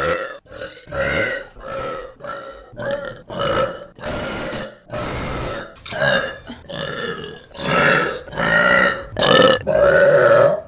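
A woman burping again and again: about fifteen short burps in quick succession, each a second or less. The loudest, longest ones come near the end.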